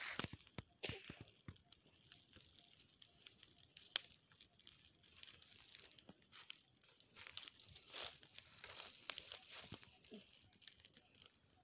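A small fire of dry leaves crackling, with scattered sharp pops, one louder about four seconds in. Along with it, the rustle and crunch of footsteps on dry leaf litter.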